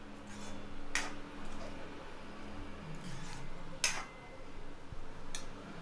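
Metal spoon stirring thick spinach gravy with paneer in a metal kadhai, with soft squelching and a few sharp clinks of the spoon against the pan.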